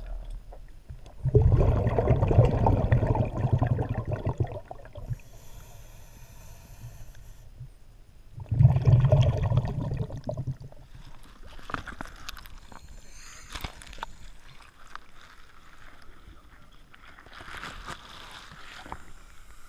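Scuba diver's regulator heard underwater: two long bursts of rumbling, crackling exhaust bubbles a few seconds apart, with a high hiss of an inhalation between them, then quieter bubbling and clicks.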